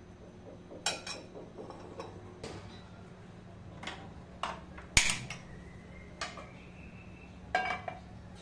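A gas hob burner being lit with a hand-held spark gas lighter: a run of sharp clicks, the loudest about five seconds in. Near the end comes a metal clank as a non-stick pan is set on the burner's pan support.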